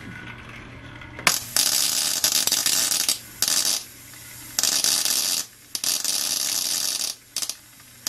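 High-voltage electric arc in a homemade plasma generator, hissing and crackling in four or five loud bursts of about a second each with short breaks between them, starting about a second in. The arc burns inside the hole of a ferrite ring magnet that is meant to spin it. A faint steady low hum runs underneath.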